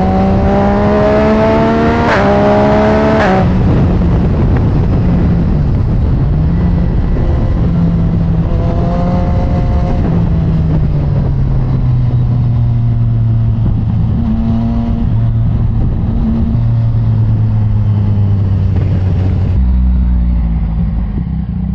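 Yamaha MT-09's inline three-cylinder engine through an aftermarket exhaust, revving up under acceleration with quick upshifts about two and three seconds in, then running at changing revs before settling into a steadier, lower note, and easing off near the end.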